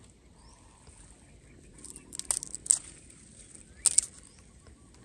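Thin bamboo stems and shoots cracking and snapping as a gloved hand bends and breaks them, in a few sharp snaps about two seconds in and two more near four seconds, with faint rustling between.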